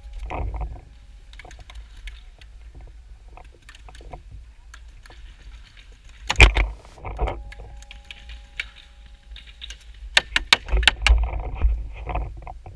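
Paintball fire: scattered sharp pops, one loud pop about six seconds in, then a quick string of pops about five a second near the end, with paintballs hitting the bunker and splattering.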